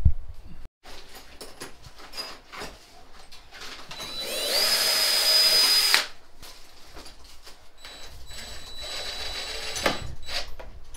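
Cordless drill driving drywall screws through plastic J-channel into the wall. About four seconds in comes one loud run: its whine rises, holds steady for under two seconds and stops suddenly. A quieter run follows near the end, with handling clicks and knocks between.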